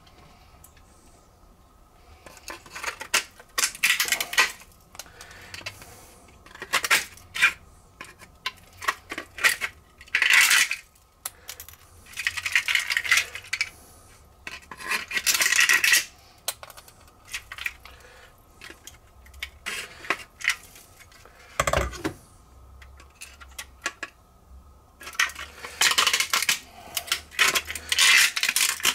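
Metal pliers scraping, clicking and prying inside a 3D-printed PLA model engine block as pieces are pulled out of its cavities. The sound comes in irregular bursts of scratchy crackling, and a dull thump lands about three quarters of the way in.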